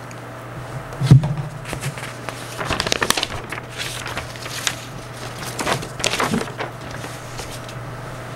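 A thump about a second in, then scattered clicks and rustles of things being handled on a desk, with a steady low hum under it all.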